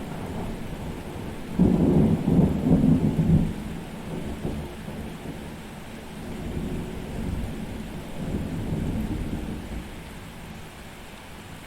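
Thunderstorm: a clap of thunder breaks suddenly about a second and a half in, rumbling loudly for about two seconds, then rolls on in weaker waves that fade away, over steady rain.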